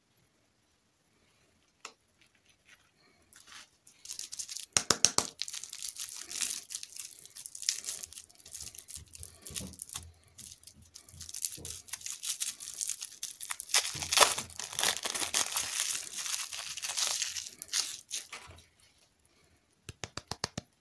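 A lollipop's wrapper crinkling and tearing as it is pulled off by hand. The crackling rustle starts about four seconds in and stops a couple of seconds before the end, followed by a few light clicks.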